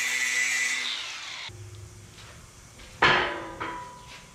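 Angle grinder grinding steel, which winds down with a falling whine about a second and a half in. About three seconds in there is a sharp ringing metal clank, then a lighter one.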